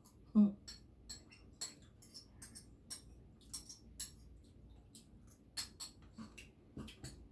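A person eating a spoonful of chicken macaroni salad: a short vocal sound about half a second in, then scattered small clicks and smacks of spoon and mouth as she chews.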